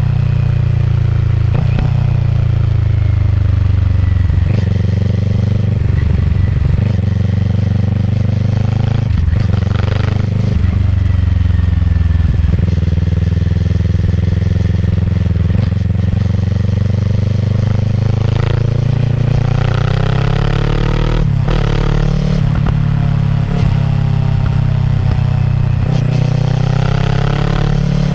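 Kawasaki ER6F's parallel-twin engine running through a Yoshimura full-system exhaust while riding. The note dips and climbs again as the throttle changes, with a few short clicks along the way.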